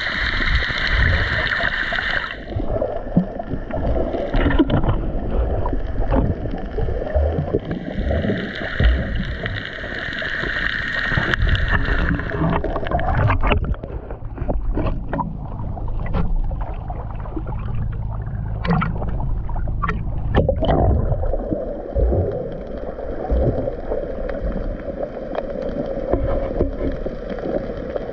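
Muffled underwater rumble and gurgle of water moving around a GoPro camera during snorkeling. There is a run of splashes and sloshing about halfway through, as the camera breaks the surface and goes back under.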